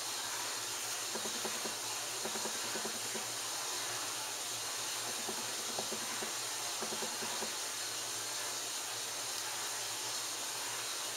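Steady hiss of background noise, with faint soft clicks and rustles in a few short spells as small plastic phone parts are handled.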